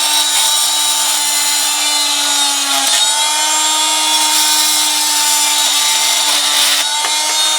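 Chicago Electric oscillating multi-tool running at high speed with its blade cutting PVC pipe: a steady buzzing hum with a harsh sawing rasp over it. The pitch sags briefly about three seconds in, as if under load.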